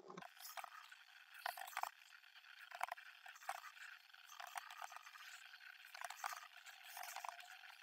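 Faint, irregular taps and clicks of typing on a computer keyboard, over a low hiss.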